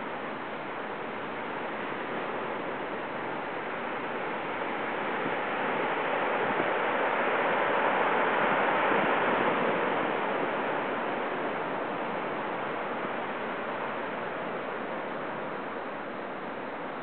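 Heavy typhoon-swell surf: a steady rush of breaking waves that builds about five seconds in, is loudest near the middle, and eases off again.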